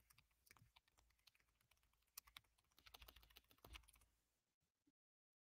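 Faint typing on a computer keyboard: scattered key clicks, with a quicker run of keystrokes about three seconds in.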